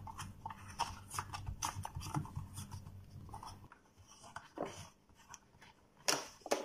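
Scattered plastic clicks and knocks of hands handling and pressing on a steam iron's plastic housing. A low hum runs under the first half and cuts off suddenly, after which only a few louder clicks come, the last near the end.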